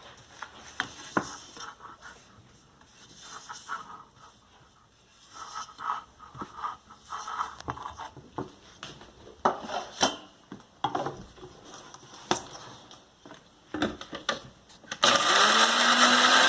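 Scattered clicks and knocks of a mixer-grinder jar being loaded and handled, then about fifteen seconds in the electric mixer grinder (mixie) switches on and runs loud, grinding poppy seeds and roasted coconut, its motor whine rising as it spins up.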